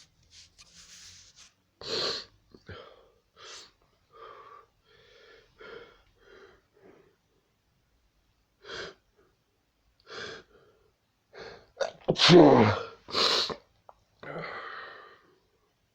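A person sneezing over and over in a fit. One loud sneeze comes about two seconds in, then a string of smaller bursts, and the loudest two in quick succession near the end.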